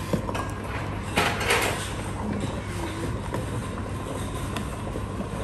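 Seafood broth in a wooden tub boiling hard from red-hot stones, bubbling and churning as it is stirred with a wooden paddle, with a louder rush of bubbling a little over a second in.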